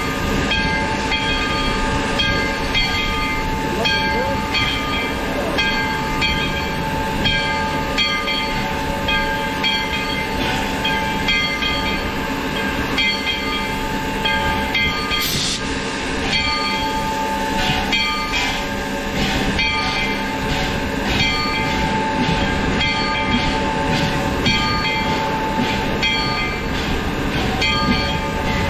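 Virginia & Truckee No. 25, a 4-4-0 steam locomotive, running slowly along the track, heard from a mount on the engine: a steady whine of several held tones with a regular series of short clicks, about one a second or a little faster.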